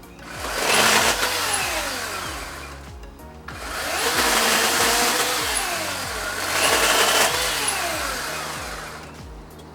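Ryobi 18V cordless chainsaw's electric motor running and cutting through branches twice: a short run about a second in, then a longer one, its pitch dropping as the chain bites into the wood. Background music plays underneath.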